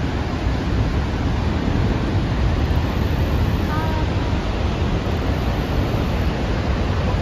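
Horseshoe Falls at Niagara, a steady rush of heavy falling water, deepest in the low end and unbroken throughout.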